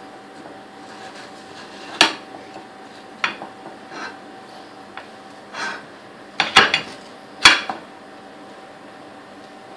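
A kitchen knife sawing down through a chilled, set biscuit cake and knocking against the ceramic plate beneath: scattered sharp clinks and scrapes, loudest about six and a half and seven and a half seconds in. A faint steady hum lies underneath.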